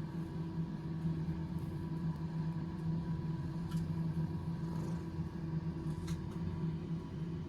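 A steady low mechanical hum with a few faint ticks over it.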